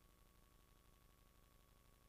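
Near silence: a faint, steady hiss with a thin, steady tone.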